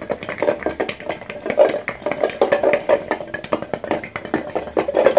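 Garlic bulb rattling and knocking inside a closed metal container that is being shaken vigorously by hand, a rapid, continuous clatter of many knocks a second; the shaking knocks the skins loose to peel the cloves.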